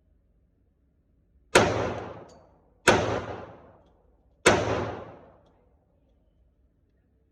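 Three single gunshots about one and a half seconds apart, each followed by a long echoing decay.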